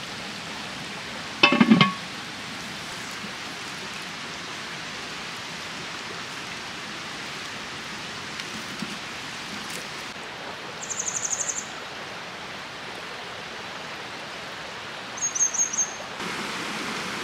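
Cast-iron Dutch oven lid set down on the pot, a quick cluster of ringing metal clanks about a second and a half in, over a steady rush of flowing water. A small bird gives a short high trill twice in the second half.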